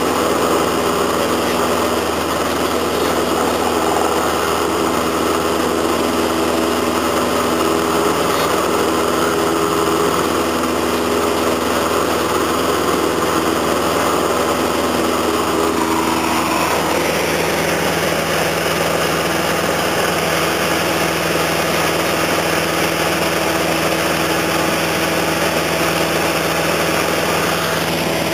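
Light aircraft's engine and propeller droning steadily, heard inside the cabin; about halfway through, the engine note shifts to a different pitch.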